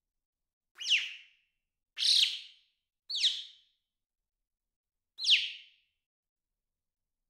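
A bird calling: four short, high calls, each a quick falling note, about a second apart with a longer pause before the last.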